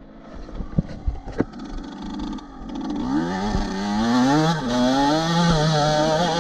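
Yamaha YZ125 single-cylinder two-stroke motocross bike pulling away: a few sharp knocks at first over a low engine sound, then about three seconds in the revs climb, drop back at a gear change and climb again before holding at a steady high pitch.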